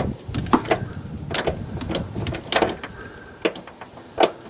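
Irregular clicks and knocks of a wrench with an extension working a rusted bolt on a decades-old car.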